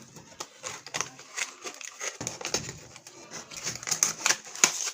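Earphone retail packaging being opened by hand: irregular clicks and crinkling of the packaging.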